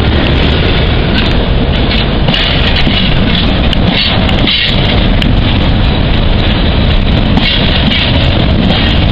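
Freight train of oil tank wagons rolling past at close range: a steady, loud rumble and rattle of wagon wheels on the rails.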